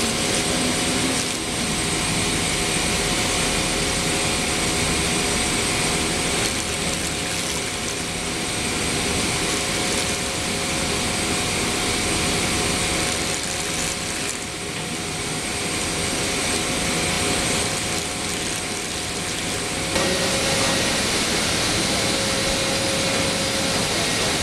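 Varkie SVA submersible horizontal sludge pump running steadily, pumping sludge: a constant mechanical hum under a steady hiss. About twenty seconds in, one of its steady tones stops and the sound gets slightly louder.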